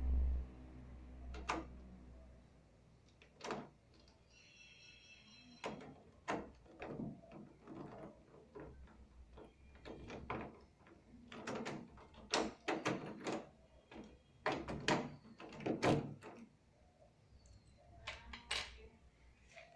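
A key working in a house door lock and the door being handled: a run of irregular metallic clicks and knocks, busiest in the second half, with a brief squeak about four seconds in.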